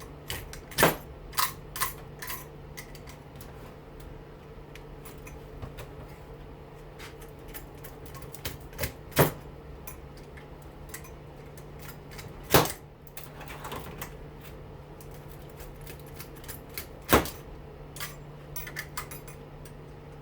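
Hand cutters snipping at the copper windings and lacing cord of a washing machine motor's stator: a few quick snips at first, then single sharp cuts spaced several seconds apart, over a steady low hum.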